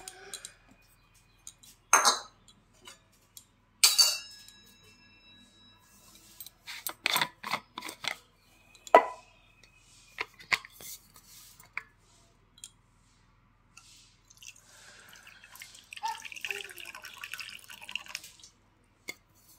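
Metal kitchenware clinking: a brass bowl, spoon and steel container knocked together and set down on a stone floor, a handful of separate clinks, some ringing on briefly.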